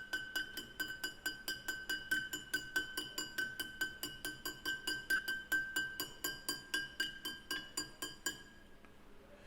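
Hammer rapidly tapping a metal dust cover onto a Dexter Nev-R-Lube trailer hub, about five taps a second, each ringing with a high metallic ping. The taps drive the cover around its rim until it seats, then stop.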